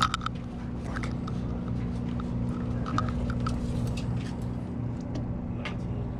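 Steady low hum of a party fishing boat's engine running, with a few scattered light clicks and knocks of tackle handling.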